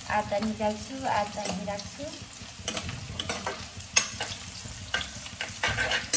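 Food frying with a steady sizzle in a pan of chicken biryani, stirred with a spoon that scrapes and clinks against the pan. The scrapes come several times, more often in the second half.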